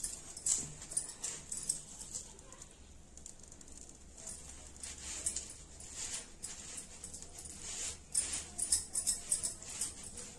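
Steel spoon spreading ghee over a methi paratha on a hot tawa: a run of light scraping and tapping strokes, busiest near the start and again near the end.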